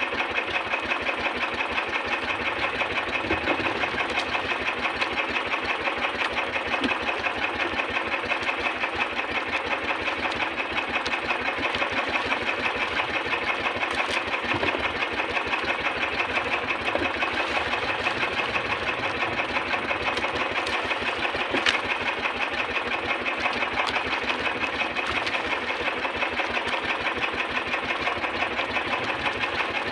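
Small boat engine of an outrigger fishing boat idling steadily with a rapid, even pulsing beat. A single sharp click about two-thirds of the way through.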